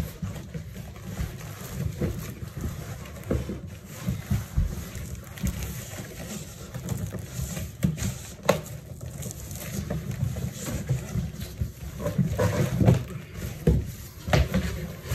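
Cardboard boxes scraping, rustling and bumping as an inner carton is worked out of an outer shipping box by hand. Irregular knocks and thumps throughout, busier near the end.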